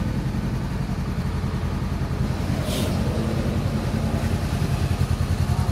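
Honda CB500X's parallel-twin engine idling steadily, with a brief hiss a little under three seconds in.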